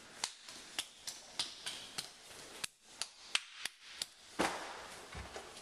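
A toddler's bare hands slapping on a hardwood floor as he crawls fast: about a dozen sharp, irregular taps, then a louder thump about four and a half seconds in.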